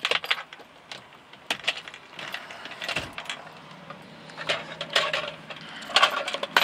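Keys and a metal steering wheel lock clicking and rattling as the lock is unlocked and handled, a string of sharp irregular clicks. A faint steady low hum starts about three seconds in.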